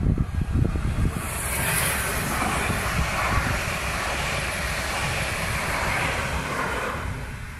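ETR 350 'FLIRT' electric multiple unit passing close by at speed: a steady rush of wheels on rail and air that builds about a second in and fades after about seven seconds. Wind buffets the microphone underneath.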